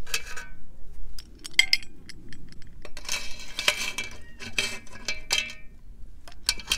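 Boiled freshwater snails being moved from the pot onto a dish: a run of sharp clinks and clicks of shells and utensils against cookware, a few of them ringing.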